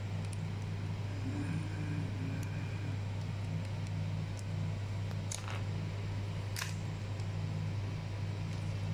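A steady low hum, with a few light clicks and taps from hands handling the camera and its plastic packaging about halfway through.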